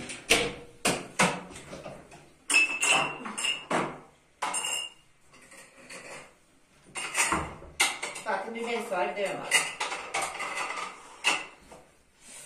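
Glass tea glasses and dishes clinking and knocking as they are taken from a kitchen cabinet and set down on the counter: a run of sharp knocks, with short glassy rings in the first half.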